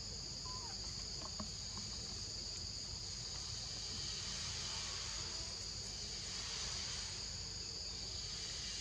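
Steady, high-pitched insect chorus droning without a break, with a faint short squeak about half a second in.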